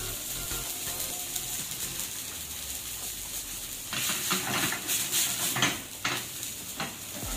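Food sizzling in pans on a gas range, a steady hiss; from about four seconds in, wooden spoons stirring and knocking against the pans.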